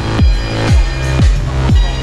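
Electronic dance music with a deep kick drum on every beat, about two beats a second.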